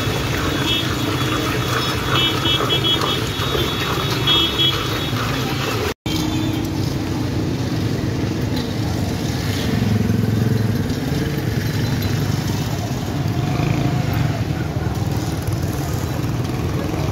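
Busy street ambience: steady motorcycle and traffic engine noise, breaking off for an instant about six seconds in.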